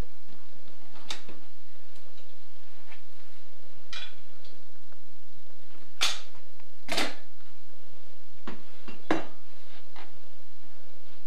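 About six sharp, separate clinks and knocks of a hand tool against the metal frame of a sliding glass shower door, the loudest two about six and seven seconds in.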